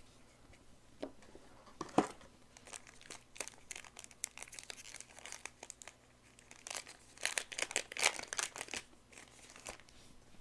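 Foil trading-card booster pack being torn open and crinkled by hand, with cards sliding and flicking against one another: a run of short crackles, the sharpest snap about two seconds in and a dense burst of crinkling around seven to eight seconds.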